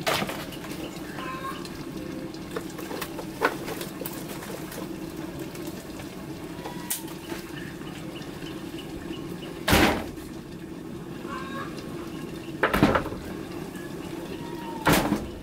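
Covered aluminium pot on a wood-fired clay stove, taro and chicken bits sizzling steadily as they are braised before water goes in. Five short, loud crackling bursts break in: near the start, about three seconds in, about ten seconds in, about thirteen seconds in, and near the end.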